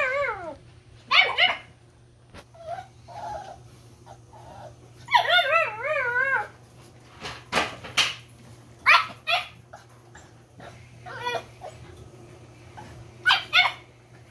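Puppies yipping and whining: two long, high, wavering whines, one right at the start and one about five seconds in, between a scatter of short sharp yips and barks.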